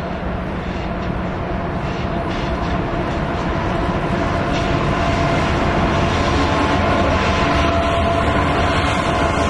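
BNSF freight train's lead diesel locomotives running as the train approaches, getting steadily louder as the locomotives draw near.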